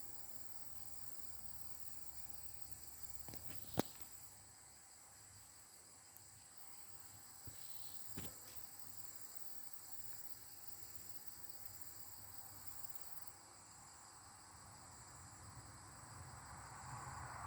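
Insects chirring steadily in several high-pitched bands, with two sharp clicks, one about four seconds in and one about eight seconds in.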